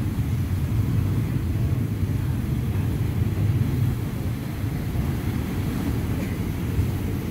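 Fan and Mortar Geysers erupting: water and steam jetting from their vents in a steady, low rushing rumble.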